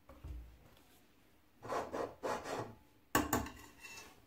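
Metal ladle scraping and rubbing around the bottom of a stainless steel pot, spreading a little cooking oil. It begins with a soft low thump, then two scraping strokes, and a sharper scrape a little after three seconds in that fades away.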